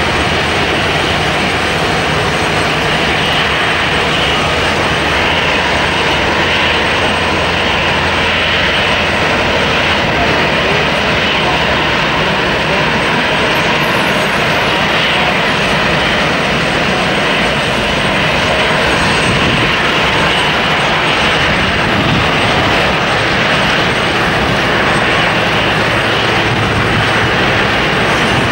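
Lockheed Constellation's four Wright R-3350 radial piston engines running steadily at idle while the airliner stands parked after start-up.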